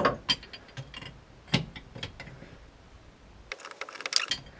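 Metal clicks and taps of a spanner being fitted and worked on a bolt at the gearbox mounting, with a quick run of clicks about three and a half seconds in.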